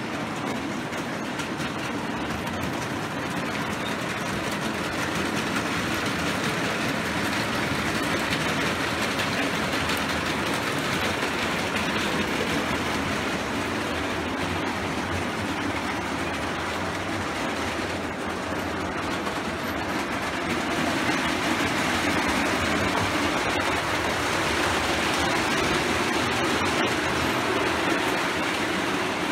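O gauge model trains running on the layout's track: a steady rumble of wheels on the rails, growing louder about six seconds in and again a little after twenty seconds as the trains come nearer.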